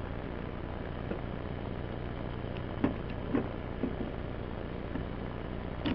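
Steady background hum and hiss, with a few faint short clicks and knocks partway through as an O-ring is worked by hand over a diesel fuel injector.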